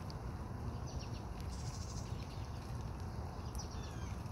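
Short bird chirps, a little over a second in and again near the end, over a steady outdoor background of hiss and low rumble.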